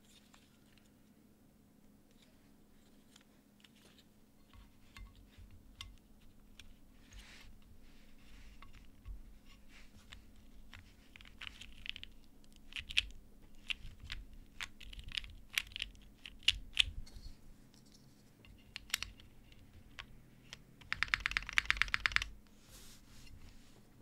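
Keystrokes on a Mekanisk Klippe T mechanical keyboard in a gummy O-ring mount with an aluminium plate and lubed NovelKeys Cream switches. After a quiet start, keys are pressed in scattered strokes and short runs, with a fast flurry of keystrokes near the end.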